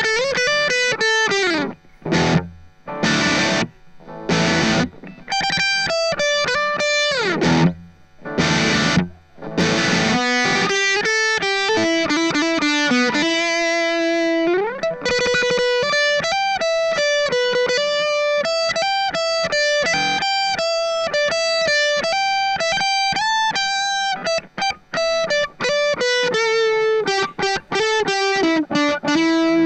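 Electric guitar played through an M-vave Mini-EFX pedal on its 'Dist-British' distortion preset. Short stabbed chords come first, for about ten seconds, then a single-note lead with slides and bends.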